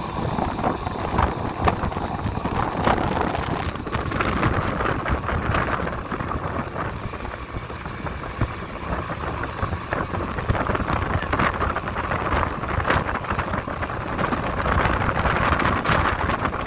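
Wind buffeting the microphone on the deck of a tanker under way at sea, over a steady rush of sea and ship noise.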